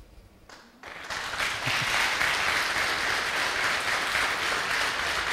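Congregation applauding, starting about a second in and keeping up steadily.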